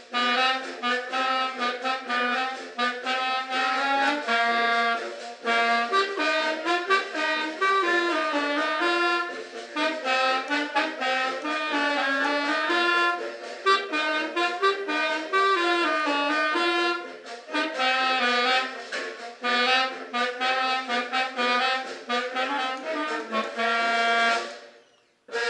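Accordion played solo: a quick melody over sustained chord notes, the notes changing rapidly. The music breaks off briefly near the end.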